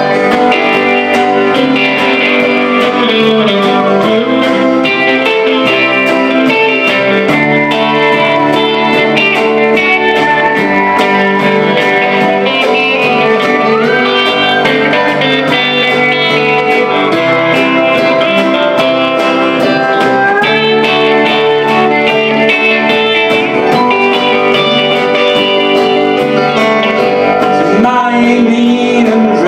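Live band playing: an electric guitar on a Fender Telecaster plays lead lines with bent notes over acoustic guitar, bass and drums.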